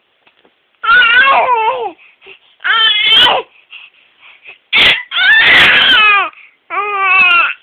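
A baby fake-coughing for attention: four loud, cry-like voiced bursts, each falling in pitch. The third starts with a sharp hack.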